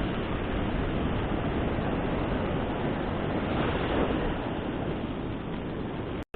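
Steady noise of surf breaking on a beach, mixed with wind on the microphone, swelling slightly midway. The sound cuts out completely for a split second near the end.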